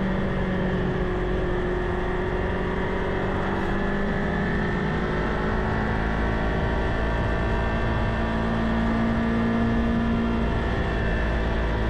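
Kawasaki Ninja 500's parallel-twin engine running steadily at road speed, its note drifting a little in pitch, under a heavy rush of wind.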